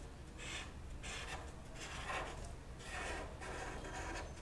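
Felt-tip marker drawing on paper: a series of faint short strokes, about one or two a second, as it traces a curved outline.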